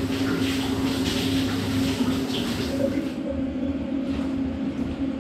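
Shower spray hissing steadily, cutting off suddenly about three seconds in, over a steady low hum.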